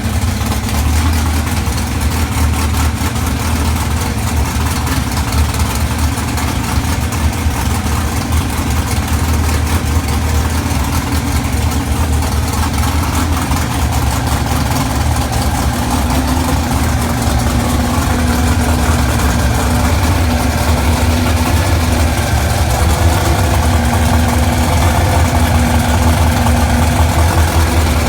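Drag-race Dodge Stratus's 604 Mopar Predator V8 idling steadily, getting slightly louder in the last third.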